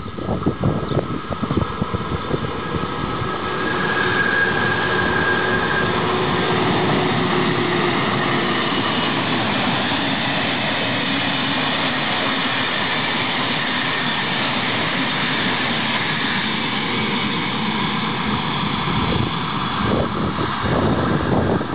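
Siemens Taurus class 1116 electric locomotive and its passenger coaches passing close by: a steady rush of wheel and rail noise with knocking clatter at the start and again near the end, and a brief high whine about four seconds in.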